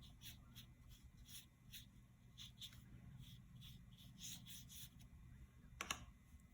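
Faint, soft strokes of a watercolor brush rubbing across paper, repeated two or three times a second, with one light tap near the end.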